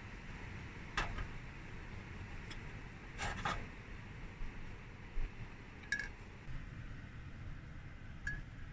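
A few light knocks and clinks from a ceramic mug being handled and set down, a double knock a little after three seconds and short ringing clinks near six and eight seconds, over a steady low rumble.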